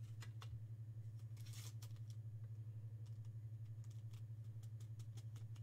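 Glossy baseball trading cards being handled and slid apart from one another: faint light clicks and a brief rustle about one and a half seconds in, over a steady low electrical hum.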